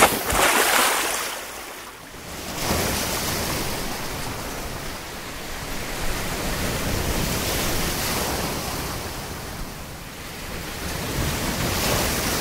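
Sea waves washing and breaking on a shore: a loud wash right at the start, a lull around two seconds in, then a steady surge that swells and eases slowly.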